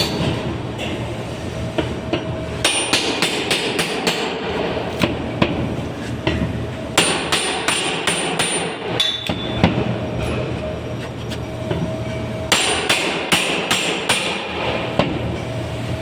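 Hammer blows during demolition of GIB plasterboard, coming in runs of several quick strikes a second with short pauses between runs, over a steady low hum.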